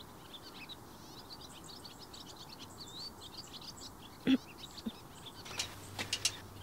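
Small birds chirping and twittering steadily in the background. A short, sharp sound comes about four seconds in, and a few quick clicks come near the end.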